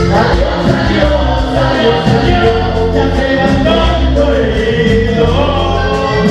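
Vallenato band playing live: accordion melody over bass and a steady percussion beat, with a voice singing.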